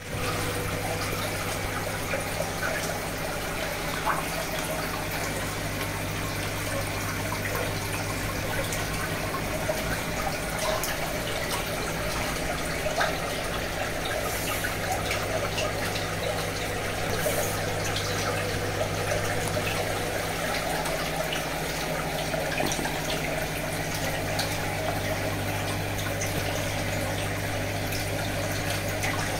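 Aquarium aeration: air from an airline tube bubbling up through the tank water, with small pops and splashes, to oxygenate it. A steady low mechanical hum runs underneath.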